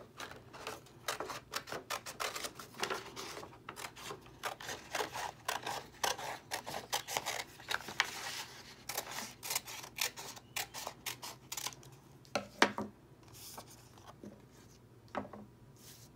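Scissors cutting through construction paper in a rapid series of crisp snips that runs for about eleven seconds. About twelve seconds in comes one louder knock, then quieter handling sounds.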